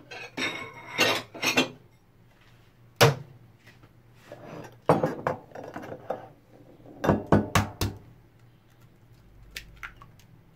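Ceramic bowls and dishes clinking and knocking on a countertop as a bowl is set out, in several clusters of sharp knocks, with an egg being cracked into the bowl.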